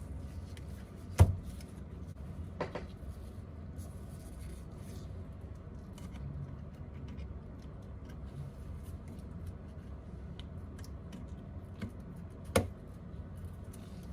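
Small hand tools clicking and tapping against a phone during repair work: two sharp clicks, about a second in and near the end, with fainter ticks and light scraping in between over a low steady hum.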